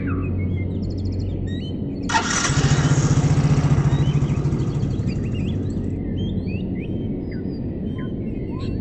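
Motor scooter engine revving up about two seconds in, running with a pulsing note, then fading as the scooter rides away. A steady low hum and birds chirping sound throughout.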